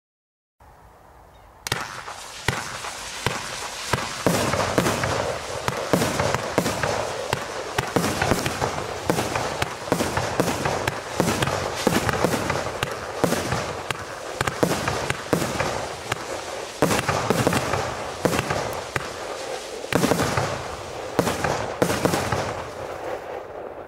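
A 25-shot 25 mm firework barrage firing: a continuous rushing hiss of silver tourbillion spinners, with many sharp bangs and pops from the shots and the red blink breaks, crowded closely together. It starts about two seconds in and dies away just before the end.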